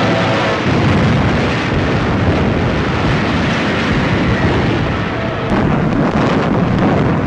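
Dense, continuous rumble of battle explosions and fire, with sharper cracks and blasts thickening in the last couple of seconds; the steady tones of an alarm siren fade out in the first moment.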